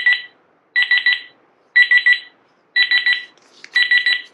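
Reizen talking digital cooking thermometer beeping: a quick run of about four high pips, repeated about once a second, five times.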